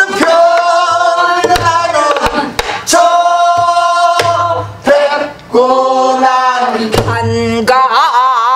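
A woman singing Korean pansori-style danga in long held notes, with wavering vibrato near the end. A buk barrel drum is struck with a stick a few times between phrases.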